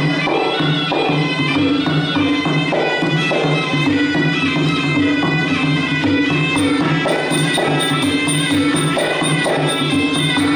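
Traditional Khmer boxing music: a reedy wind instrument plays a sustained, winding melody over a steady, even drum beat with small cymbals, the ensemble that accompanies Kun Khmer fights.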